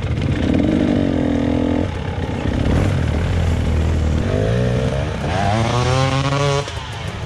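Dirt bike engine running under throttle: it holds a steady pitch for the first couple of seconds, eases off, then climbs in pitch as it accelerates before the throttle is shut off near the end.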